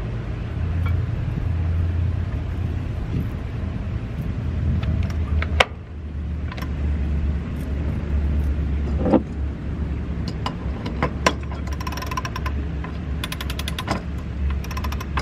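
A sailboat's mast winch clicking in quick runs near the end as a halyard takes up the weight of a heavy battery. A few single knocks come before, all over a steady low hum.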